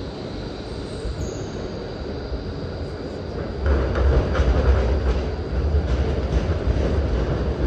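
Melbourne E-class low-floor trams rolling on street rails, a low rumble that grows suddenly louder about three and a half seconds in as the trams draw near.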